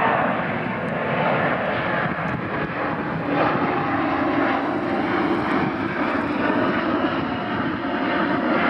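Airbus A330-900neo's two Rolls-Royce Trent 7000 turbofans at climb power as the airliner climbs away after takeoff: a loud, steady jet roar with a few faint tones in it.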